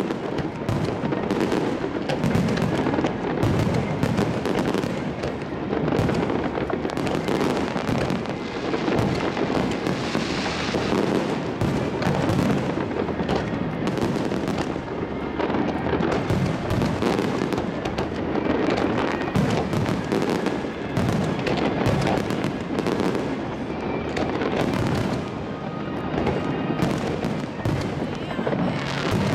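Aerial fireworks barrage: shell after shell bursting in rapid, overlapping bangs and crackle, with no break.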